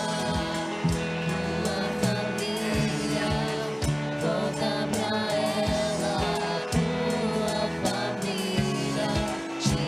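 Christian worship music: singing with instrumental backing and a steady beat.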